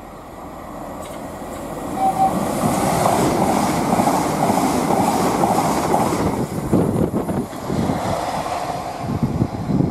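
Southeastern Class 395 Javelin electric train passing close at speed. A rising rush peaks about two seconds in and holds, then gives way to a rhythmic clatter of wheels over the rail joints in the last few seconds.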